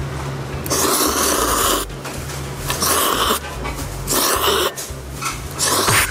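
A person loudly slurping cold soybean-broth noodles (kongguksu) from a bowl: four long, hissing slurps, the first the longest.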